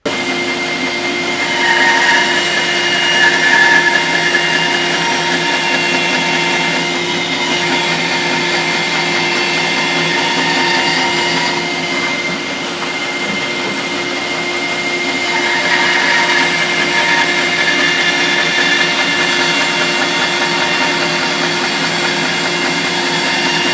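Bandsaw running and cutting 4x2 softwood timber for bridle joints, a steady machine hum with the blade working through the wood. The sound swells twice, a couple of seconds in and again around sixteen seconds in.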